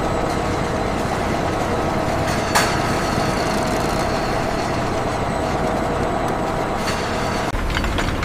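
Heavy industrial machinery running steadily, a loud even mechanical noise with a constant hum. There is one sharp click about two and a half seconds in, and the sound shifts near the end.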